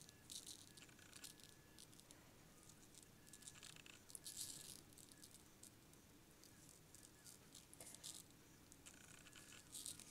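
Fine table salt being shaken from a salt container onto wet, sprayed watercolour paper. It comes as faint, short bursts of grains rattling and pattering, several shakes in a row.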